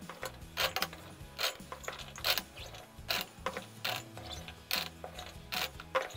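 Chopped raw quince cubes scooped by hand from a glass baking dish and dropped into a large glass jar: irregular clatter and knocks of fruit pieces on glass, about one or two handfuls a second.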